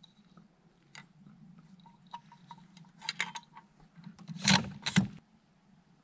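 Savage Model 110 Precision bolt-action rifle being loaded and its bolt worked: scattered light metallic clicks, then two louder clacks about half a second apart near the end.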